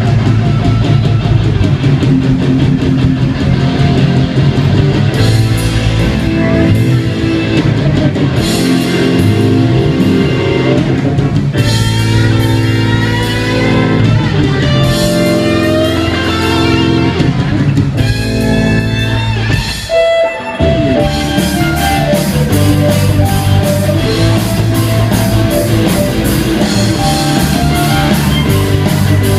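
Live rock band playing a loud arrangement, with a violin lead over electric guitars, bass, drum kit and keyboard. The music breaks off briefly about two-thirds of the way through, then comes back in with a steady drum beat.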